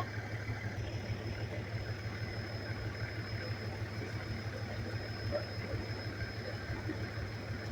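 A vehicle engine idling: a steady low hum with a thin, steady high whine alongside it.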